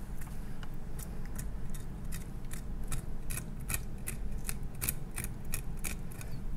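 Chef's knife slitting open a yellowtail snapper's belly on a wooden board: a string of short, crisp snipping ticks, about three a second, starting about a second in, as the blade cuts through the skin and flesh.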